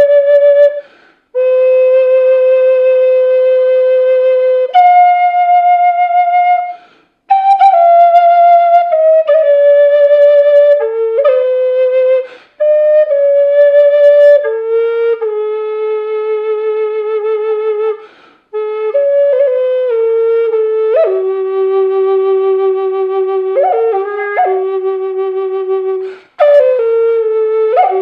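Native American style flute in G4, with a figured maple body and an African blackwood mouthpiece, playing a slow melody of long held notes. Its phrases are broken by breaths and settle onto the low G, with quick ornamental flicks near the end. The tone is articulate, very clear and pure, with no buzzing or hissing.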